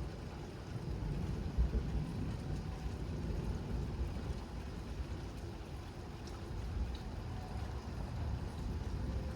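Thunderstorm arriving: a steady low rumble that swells and fades, with no sharp cracks.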